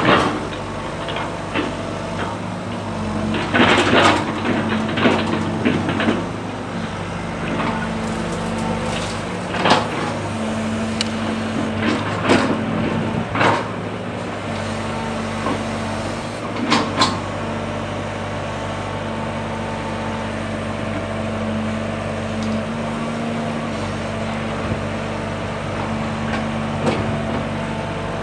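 A Sumitomo tracked excavator's diesel engine runs steadily under work. Sharp knocks and clanks from the working arm and bucket come every second or two during the first seventeen seconds or so, then only the engine continues.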